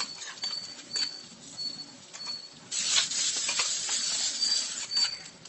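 Ghee tempering of ginger, pepper, cumin and cashews scraped from a small pan into cooked pongal with a metal spoon. The spoon clicks against the pan, then from about halfway through a sizzling hiss sounds as the hot ghee meets the moist rice and dal. Faint short high chirps repeat in the background.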